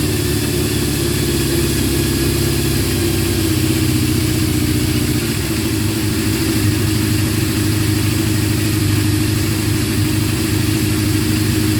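Kawasaki Z650 motorcycle engine running steadily, near idle, on its first start after a repair.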